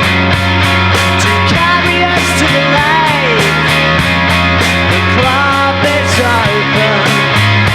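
Instrumental rock band music: distorted electric guitars, bass and drums playing at a steady beat, with a bending lead-guitar line in the middle.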